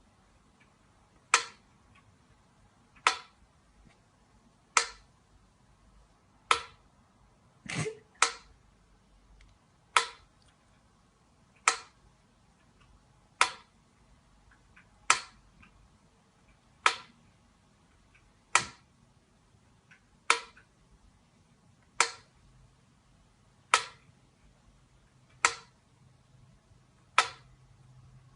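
Sharp ticking clicks repeating evenly, about one every 1.7 seconds, with an extra click coming just before one of them about eight seconds in.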